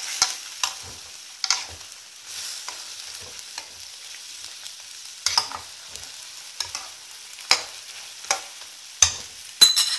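Chicken pieces sautéing in hot oil in a kadhai: a steady sizzle with sharp ticks about once a second.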